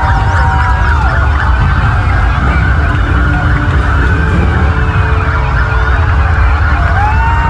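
Several police motorcycle sirens wailing at once, overlapping, with one clear rising and falling wail near the end, over a steady low rumble.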